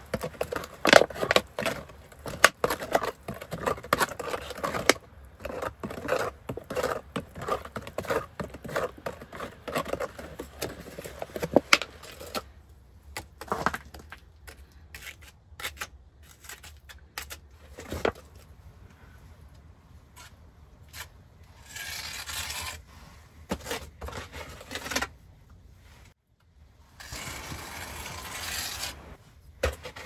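Wet mortar being mixed by gloved hands in a plastic container: rapid scraping, crinkling and squelching. Then come sparser scrapes as it is worked onto a brick cookstove's plaster. Near the end there are two longer bursts of plastic-bag rustling.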